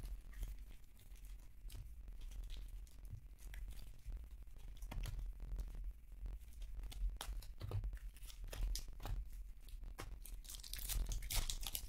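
Foil trading-card pack wrappers being torn open and crinkled by hand: a run of irregular crackles and short rips.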